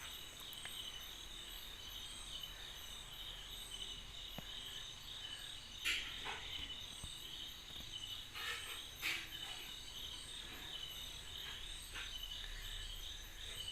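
Insects chirring steadily in a high, evenly pulsing trill, with a few short rustles and clicks of fishing line and hooks being handled about six and nine seconds in.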